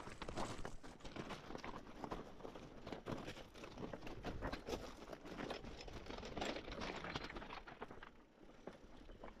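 Footsteps crunching on gravel and loose rock, an uneven run of crunches and clicks.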